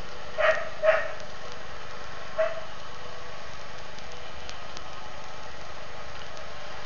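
Steady hiss of background and microphone noise. Two quick short calls come in the first second and a third about a second and a half later, with faint mouse clicks scattered throughout.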